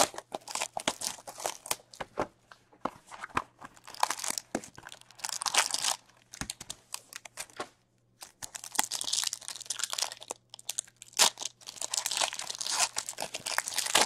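Hockey card packaging being torn open and handled: the box opened and a foil card pack wrapper crinkled in the hands, as sharp rips and crackling. It is heaviest about four to six seconds in and again from about nine seconds on.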